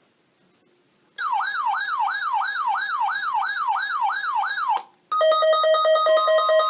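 Electronic alert siren wailing fast, about three falling sweeps a second. Near the end it cuts off and gives way to a pulsing electronic alarm of several steady tones.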